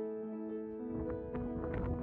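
Soft background piano music with held notes. About a second in, wind buffeting the microphone comes in as an uneven rumble under the music.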